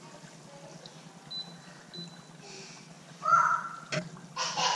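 Faint steady sizzle of a test piece of battered squid frying in hot oil, with two louder short noises in the second half.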